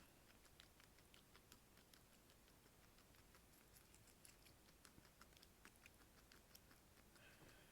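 Guinea pig chewing its food: a quick, irregular run of faint, crisp little clicks.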